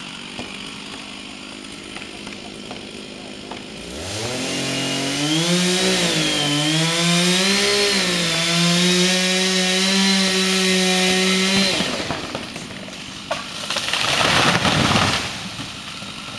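Stihl chainsaw revving up about four seconds in, its pitch wavering as it climbs, then running at steady full throttle for about seven seconds before dropping off. A brief rushing noise follows near the end.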